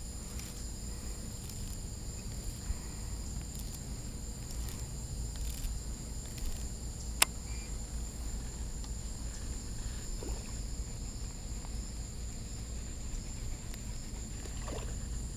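Steady high-pitched insect chorus, with a low rumble of wind or handling underneath and a single sharp click about seven seconds in.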